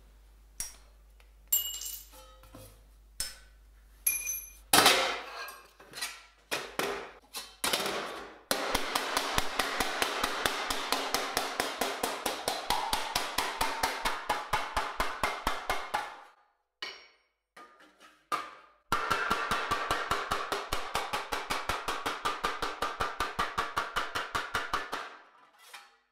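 Hammer blows on thin stainless steel sheet laid over a steel dishing block: two long, steady runs of quick strikes, about four a second, with a short break between. Before the hammering, scattered single knocks and clanks as the sheet is handled on the block.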